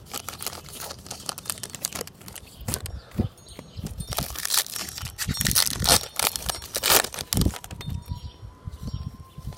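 Plastic foil trading-card pack wrapper being crinkled and torn open by hand, an irregular run of crackling rustles and sharp snaps.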